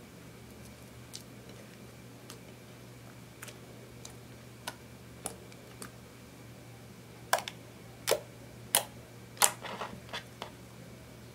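Fingers pressing and poking sticky slime (clear slime mixed with eyeshadow), air pockets popping with sharp clicks. The clicks are scattered and faint at first, then come as a quicker run of louder pops a few seconds before the end.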